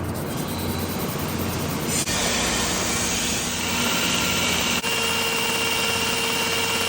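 Steady roar of workshop machinery running, changing abruptly twice.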